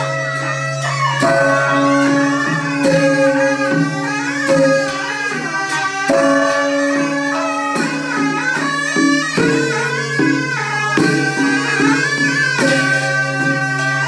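Traditional folk music: a reedy wind instrument plays a melody of held notes over a steady low drone, with scattered drum and gong strikes.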